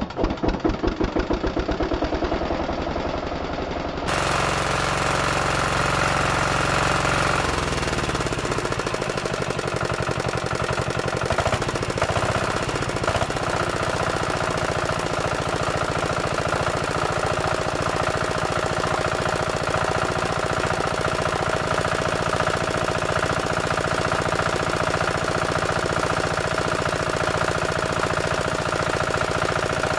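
12 hp diesel engine running steadily under its own power, belt-driving a 3 kW alternator.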